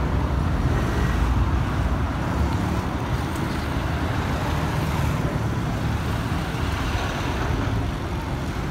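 Road traffic passing close by: cars, minibuses and motorbikes, a steady noise with a heavy low rumble.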